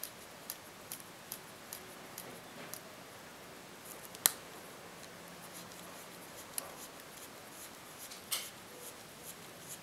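Small sharp clicks at irregular intervals from an ETA 2824-2 automatic watch movement as its date disc is advanced through several dates with the quick-set, the loudest click about four seconds in and a short cluster near the end.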